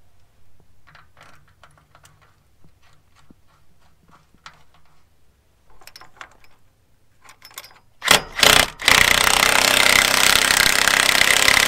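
Faint metal clinks of bolts and washers being fitted, then about eight seconds in an impact wrench fires two short bursts and runs steadily for several seconds, driving home replacement bolts on a grain drill.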